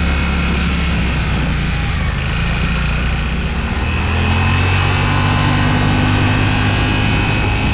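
Yamaha Wolverine X4's 847 cc parallel-twin engine running steadily on a freshly rebuilt top end after flood damage. Its pitch sags slightly, then rises a little about four seconds in.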